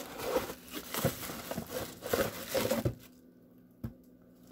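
Cardboard product box being opened and handled: irregular rustling, crinkling and scraping for about three seconds, then it goes quiet apart from a single knock.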